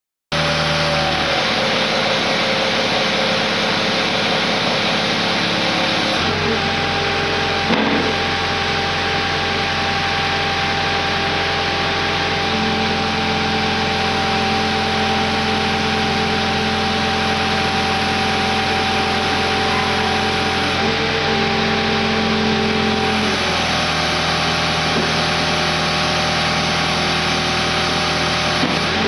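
Skid steer engine running steadily under hydraulic load, its tone shifting several times as the machine works, with a single knock about eight seconds in.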